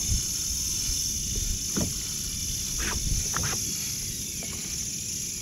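Water washing against a kayak hull, with wind on the microphone and a few short splashes or knocks about halfway through.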